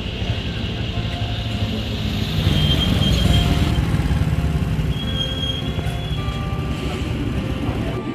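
Motorcycle engine and road and wind noise while riding along a street, with light guitar background music over it.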